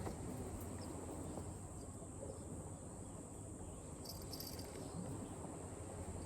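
Insects chirping in a steady high drone, with a short, brighter burst of chirps about four seconds in, over a low outdoor rumble.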